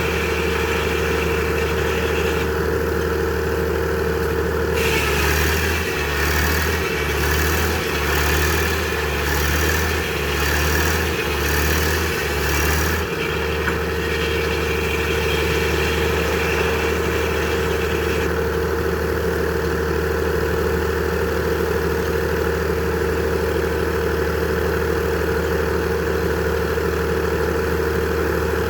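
Frick sawmill running steadily. From about five seconds in until about thirteen seconds, a pulsing sound of a bit over one beat a second sets in and the steady running pitch sags slightly, then recovers.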